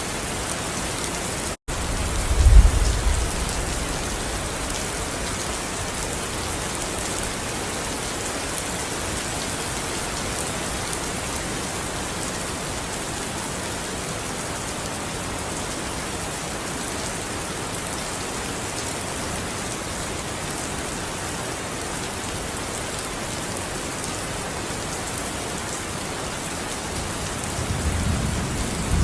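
Steady heavy rainfall, an even hiss of rain on surfaces, with a low rumble of thunder about two seconds in and another building near the end. A split-second gap in the sound comes just before the first rumble.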